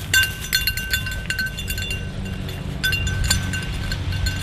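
Bell on a hunting dog's collar jingling irregularly as the dog searches through cover, with a pause in the middle. A steady low rumble runs underneath.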